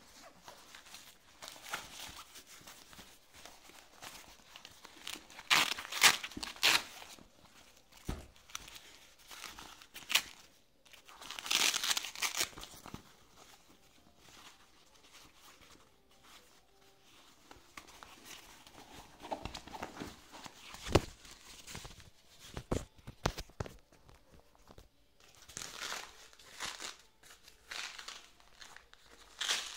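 Fabric arm cuff of an Accusure digital blood pressure monitor being handled and wrapped round an upper arm: irregular rustling and crinkling, with short loud rasps of its hook-and-loop strap being pulled and pressed shut.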